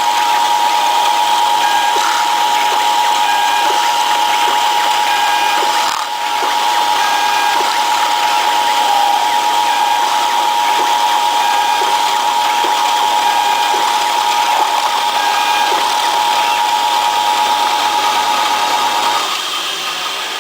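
Small CNC mill engraving a printed circuit board, driven by stepper motors: a steady high whine over a low hum and hiss, with faint regular ticks. The machine stops near the end.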